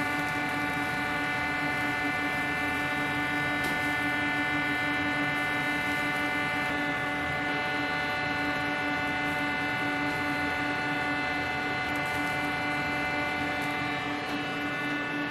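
Steady machine hum at one constant pitch, with a stack of higher overtones above it and no change in speed. A faint click now and then.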